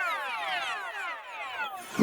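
Dancehall DJ sound effect: a run of overlapping electronic siren-like sweeps, each falling in pitch, fading out and cutting off just before the end.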